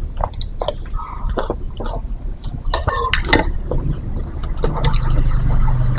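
Close-up eating of a soupy dish: wet mouth sounds, spoon and broth noises and short clicks, over a steady low hum.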